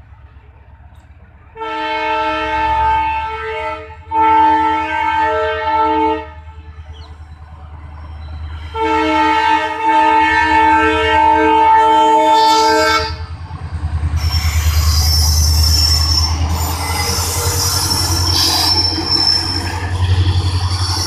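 Indian Railways diesel locomotive's multi-tone horn: two blasts of about two seconds each, then a longer blast of about four seconds. Then the locomotive and its coaches pass slowly close by, with a low rumble of engine and wheels on the rails and a steady high wheel squeal.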